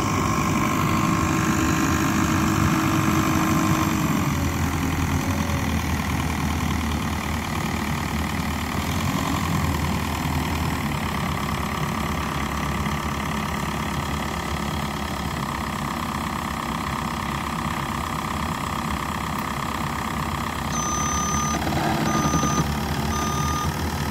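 Forklift engine running and shifting in pitch as it lifts and sets a pallet load. Near the end a reversing alarm starts beeping evenly.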